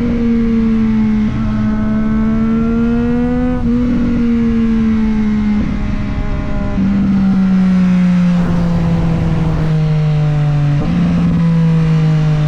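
Triumph Street Triple 765 RS's inline three-cylinder engine and exhaust running under way, its pitch drifting slowly up and down, with a few brief steps in pitch at gear changes.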